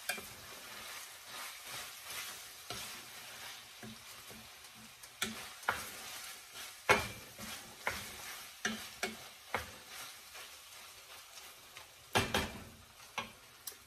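Wooden spoon stirring and scraping ground beef with diced potatoes in a stainless steel frying pan, over a steady low sizzle from the pan. Irregular scrapes and knocks, the loudest about seven seconds in and a cluster near the end.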